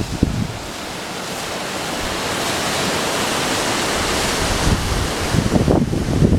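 Mountain waterfall rushing steadily, swelling a little through the middle, with wind buffeting the microphone in low thumps near the start and again toward the end.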